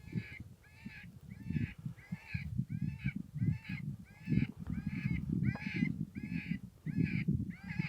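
Harsh, crow-like calls repeated steadily about twice a second, typical of an electronic predator caller playing a bird call, with low rumbling noise underneath.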